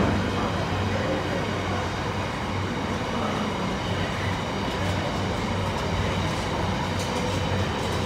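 Container freight train passing close by, its wagon wheels running steadily on the rails, with a brief louder surge right at the start.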